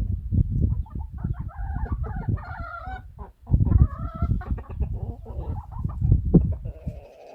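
Hens clucking, with a couple of longer, drawn-out calls about two and four seconds in. Under them runs a loud low rumble of knocks and bumps that stops just before the end.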